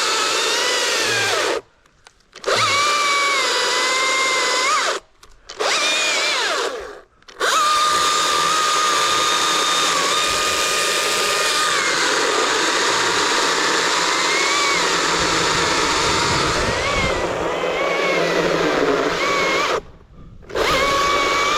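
Two-stroke Husqvarna chainsaw running and cutting wood, its engine pitch dipping under load and recovering. The sound drops out abruptly four times, each time for under a second.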